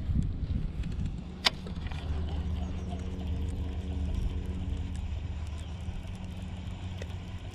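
Wind buffeting the camera microphone, a steady low rumble, with one sharp click about a second and a half in.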